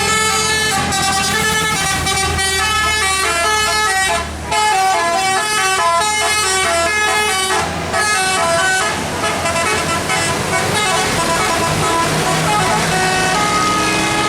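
Bus telolet horn, a set of electrically switched air-horn trumpets, playing a fast melody of short notes that step up and down in pitch, with the bus engine running underneath. The notes come thickest in the middle, and only a few held tones sound near the end.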